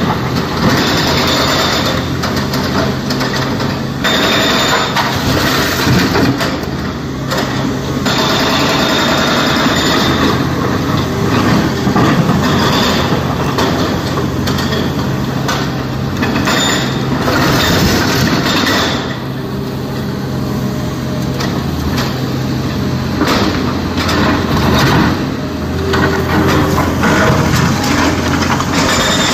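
SANY SY225 crawler excavator's diesel engine running steadily under hydraulic load as it digs and swings a bucket of broken quarry rock, with rocks knocking and scraping against the bucket and dropping into the steel bed of a dump truck.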